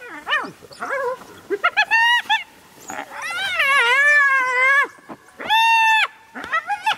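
Spotted hyenas squealing and giggling in a fight with wild dogs over a kill: a run of short high-pitched calls, then a long wavering squeal about three seconds in that lasts nearly two seconds, then a shorter, steadier squeal and a few quick calls near the end.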